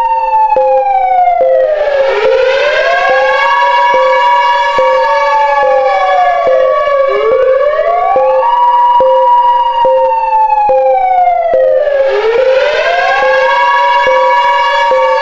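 Civil defence air-raid siren sounding a wailing attack warning: its pitch rises, holds and falls in a cycle of about five seconds. A steady lower tone sounds underneath it.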